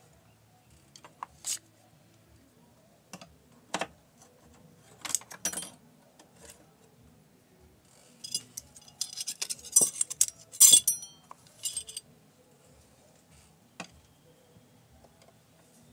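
Small metal parts and tools clinking, tapping and rattling against a Singer portable sewing machine being taken apart for cleaning. Scattered single clicks at first, then a busier, louder clatter from about eight to twelve seconds in, and one more click near the end.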